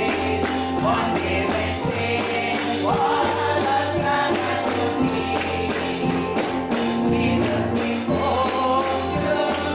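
A woman singing a gospel song into a microphone, with other voices joining in and jingling percussion keeping a steady beat.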